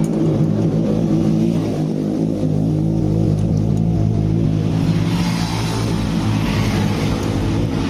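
An engine running steadily, picking up somewhat from about five seconds in.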